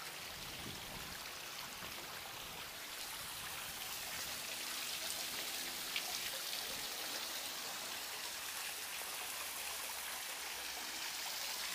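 Steady rush of water falling from a small stone garden cascade into a pond, growing a little louder about four seconds in.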